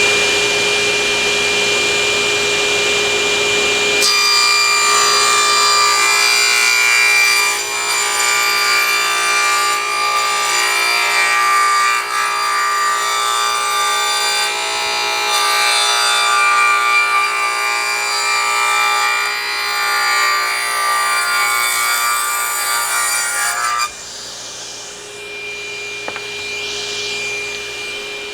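Table saw running, its blade spinning with a steady whine; about four seconds in it starts cutting into a wooden board, a harsher, rougher sound that lasts some twenty seconds. Near the end the cut finishes and the saw drops back to a quieter steady whine.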